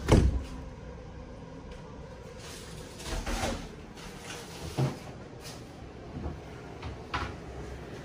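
Sliding glass balcony door pulled shut with a sharp thump, after which the steady outside hum drops. A few fainter knocks and a click follow.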